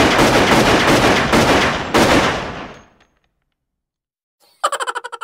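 A rapid barrage of gunfire, many shots running together, that dies away about three seconds in. After a short silence, a fast chattering of short pitched pulses, about a dozen a second, starts near the end.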